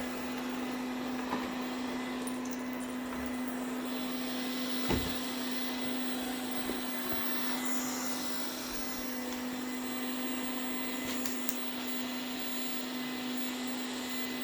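Ziglint robot vacuum cleaner running with a steady hum, with a single knock about five seconds in.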